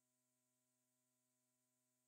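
Near silence: the soundtrack holds nothing but an extremely faint, steady hum.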